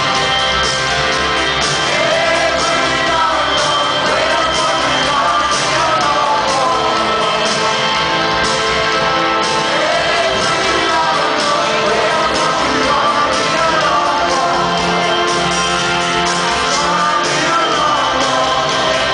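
Live rock band playing with a male lead vocal singing, heard from the stands of a stadium.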